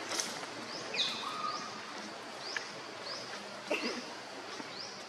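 A small bird chirping repeatedly, short high calls about twice a second, over a steady hiss of outdoor background noise.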